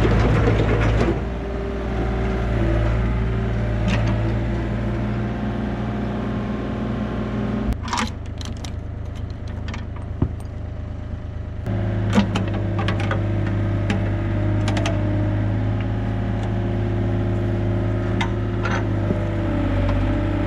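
Yanmar B37 mini excavator's diesel engine running, its note dropping and rising as the hydraulics are worked, with a few scattered metallic knocks.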